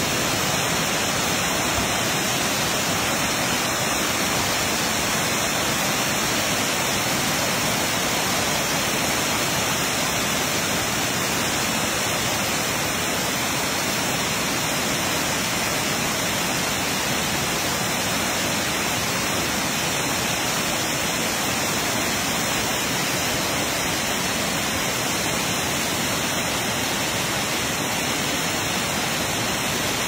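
Amicalola Falls, a tall waterfall cascading down a steep rock face, rushing steadily without change.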